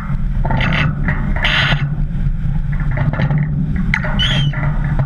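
Wind buffeting the microphone and water rushing past the hull of a sailing yacht heeled in rough sea, with bursts of spray hiss as the bow slams through waves. A short high squeak comes near the end.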